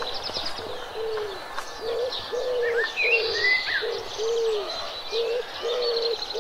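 Birds calling: a low, short cooing note repeats about one to two times a second, with higher chirps and trills over it.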